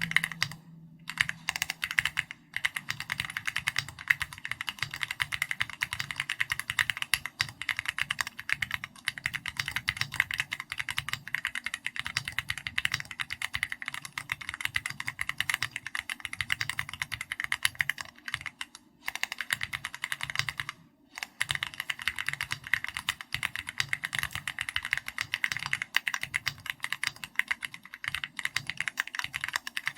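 Continuous typing on a custom mechanical keyboard: an SPM AL66B board with Keychron Red linear switches and XVX comic-style keycaps, giving a dense run of keystroke clacks. It pauses briefly near the start and twice around two-thirds of the way in.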